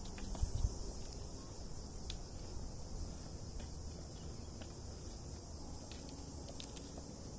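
Steady high-pitched insect buzzing from the dry scrub, with footsteps on a stony dirt trail and a few heavier thumps in the first second.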